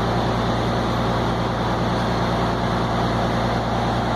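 A machine running steadily: an even mechanical noise over a low hum that does not change.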